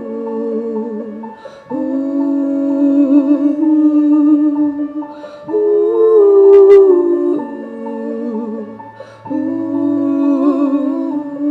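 Slow wordless melody of long held notes with a light vibrato, shifting to a new pitch every few seconds, with short breaks between phrases.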